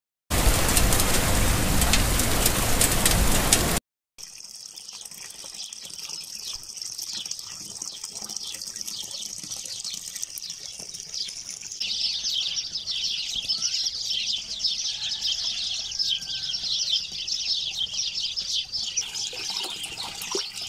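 Water pouring from a pipe into a concrete pool, a steady rush with birds chirping over it many times, the chirping louder past the middle. In the first few seconds there is a short, much louder rush of water that cuts off abruptly.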